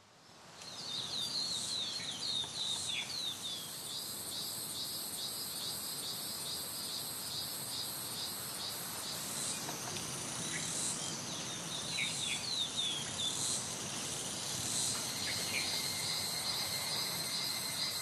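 A steady high-pitched insect chorus trills over a soft background hiss. Runs of short falling chirps sound near the start and again about twelve seconds in.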